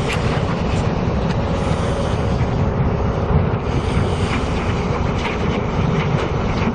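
Wind buffeting the microphone: a heavy, uneven low rumble.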